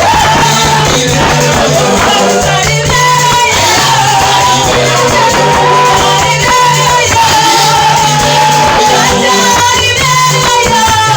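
Praise music: singing over a steady beat, with a repeating bass line and shaker-like percussion.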